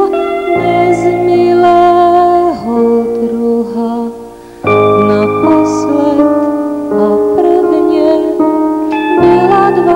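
Live band music: sustained keyboard chords under a sung melody, with new low chords coming in about half a second in, about five seconds in and about nine seconds in.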